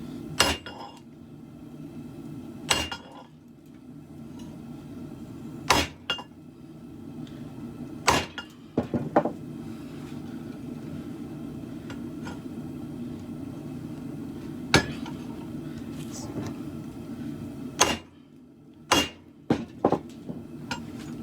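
Single hammer blows on steel at the anvil, each with a short metallic ring, spaced a few seconds apart, then several in quick succession near the end, over a steady low rumble.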